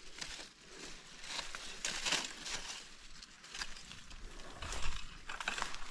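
Mango leaves and branches rustling and brushing as someone pushes through the tree's canopy, in a couple of scratchy spells.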